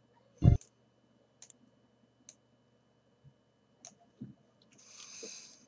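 A dull thump about half a second in, then a few faint, scattered clicks of someone working at a computer desk. A soft hiss lasts about half a second near the end.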